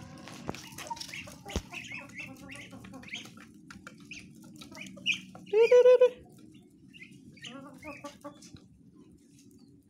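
Chickens clucking and calling in short high notes while feeding on scattered feed, with one loud squawk a little over halfway through; the calls thin out towards the end.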